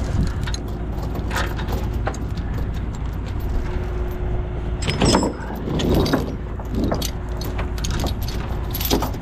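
Steel tow chain clinking and rattling as it is handled and shortened through a tractor's hitch plate, with a couple of louder clanks about five and six seconds in. A truck engine runs steadily underneath.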